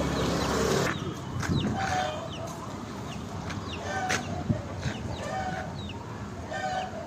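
Chickens clucking in short calls repeated every second or so, with thin high peeps among them. A steady noise with a low hum fills the first second and cuts off suddenly.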